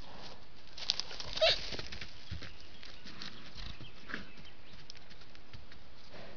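Young sambar stag with spike antlers giving a short call with a falling pitch about a second and a half in; a fainter call follows near the middle.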